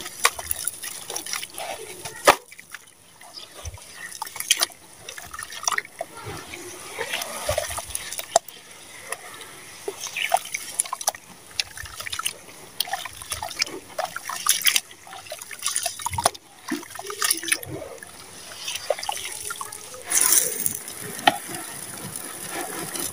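Hands squelching and crumbling wet sand-cement mud in a plastic tub of water, with irregular splashes, drips and gritty crackles. Near the end comes a longer, denser splash.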